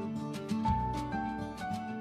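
Soft background music with plucked guitar notes.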